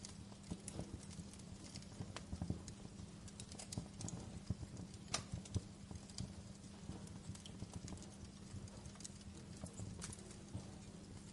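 Wood fire crackling: irregular sharp pops and snaps of burning logs over a steady low rumble, with a few louder pops around the middle.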